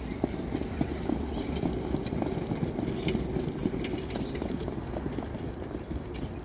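Hoofbeats of standardbred harness horses trotting past on a dirt track while pulling sulkies: a rapid run of sharp hoof strikes over a steady low rumble.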